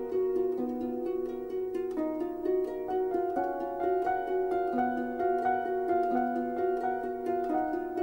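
Background music: a flowing run of quick plucked notes, harp-like, over held tones.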